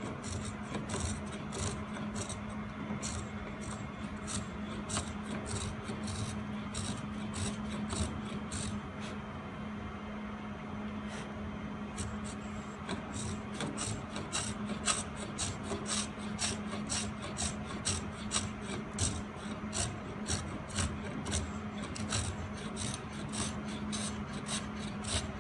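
Round-soled spokeshave scraping along a concave wooden edge in short, quick cutting strokes, about two a second, with a short pause about ten seconds in. A steady low hum sits underneath.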